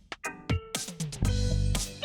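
Background music: plucked guitar-like notes over a beat.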